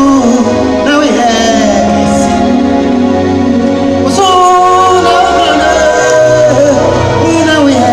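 Ghanaian worship song: voices singing a slow, held melody with vibrato over sustained keyboard chords.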